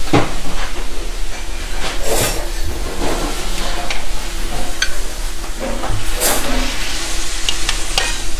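Busy commercial kitchen: a steady hiss over a low hum, with a few sharp clinks and knocks of a spoon against a sauté pan and a plate as food is stirred and plated.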